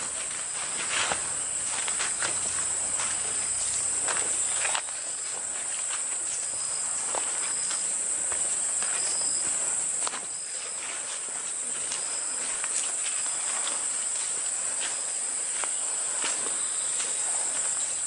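Steady high-pitched drone of forest insects, with footsteps on the leaf litter of a forest trail: scattered crunches and twig snaps. A few short high notes sound now and then over the drone.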